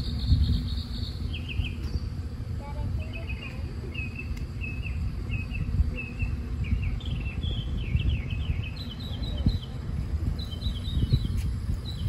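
Wind rumbling on the microphone, with a small bird giving runs of short, trilled chirps that shift in pitch, higher near the end.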